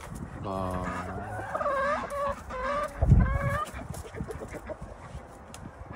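Domestic chickens clucking and calling, a short steady call followed by several wavering calls. A loud low thump comes about three seconds in.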